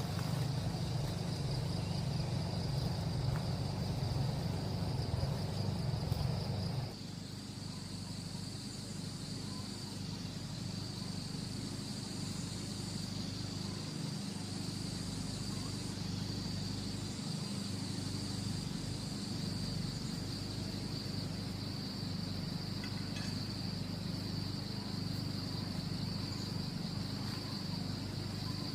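Insects chirring in a steady, high, even drone. For the first seven seconds a louder low rumble sits underneath, then stops abruptly, leaving a softer low hum.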